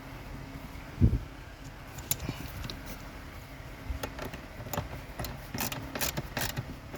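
A dull thump about a second in, then scattered sharp metallic clicks and taps, several close together near the end, from a hand tool tightening the bolt on a newly fitted AC expansion valve and evaporator.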